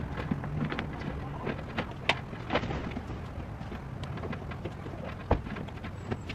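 Scattered clicks, taps and knocks of parts and tools being handled at a car's front end during reassembly, a louder knock about two seconds in and another about five seconds in, over a steady low hum.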